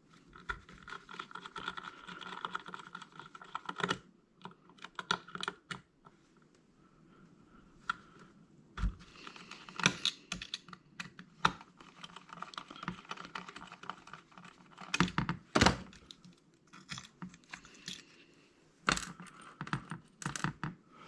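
Small screws being backed out of a hard drive with a screwdriver: many light metallic clicks and taps of tool and parts, a thin whine in stretches, and a few louder knocks.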